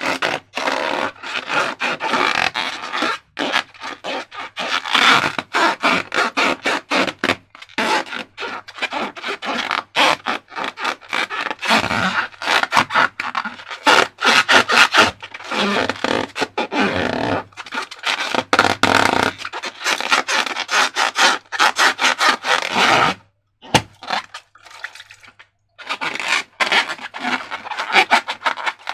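Slime being worked by hand: irregular sticky crackling and scraping in quick stop-and-start strokes, with a brief lull about three-quarters through.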